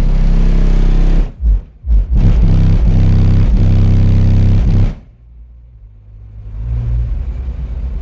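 Car audio subwoofers playing loud, deep bass notes, heard from outside the vehicle. The bass drops out briefly about a second and a half in, cuts off about five seconds in, and a quieter low bass tone swells back near the end.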